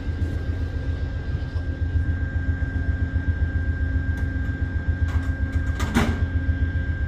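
Freight train rumbling with a low, rhythmic pulsing several times a second and a steady high whine over it; a short rasping scrape about six seconds in.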